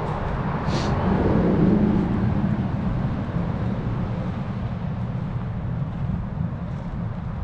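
A road vehicle passing by. Its sound swells to a peak about two seconds in and then fades, falling in pitch as it moves away, over a steady low rumble.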